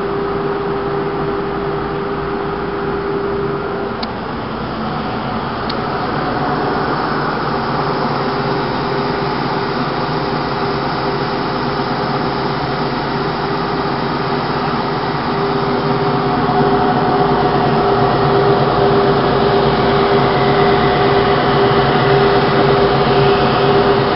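SCM Sandya 20 M2 135 double-head wide belt sander running, a steady machine hum with a held tone, while a wood board is fed through on its conveyor. The sound grows louder about two-thirds of the way through.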